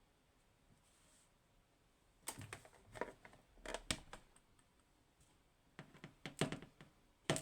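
Small metal clicks and clinks in several short clusters as the pins and springs are worked out of a Clavis 10-pin lock's chambers.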